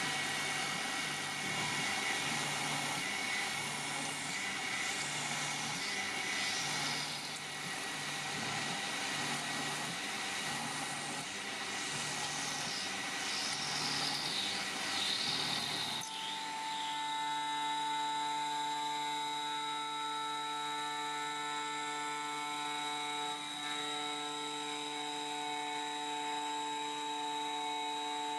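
CNC milling machine's end mill cutting an aluminium plate. Rough, noisy cutting for a little over half the time, then, after a sudden change, a steady whine of several even tones.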